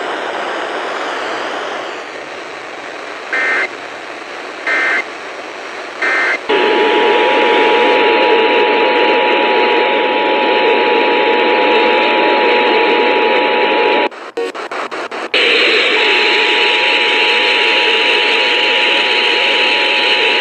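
Emergency Alert System signals heard over radio static. Three short data bursts of two-tone warble come first, then the EAS attention signal: a two-note steady tone. It cuts out about 14 seconds in and comes back a second or two later.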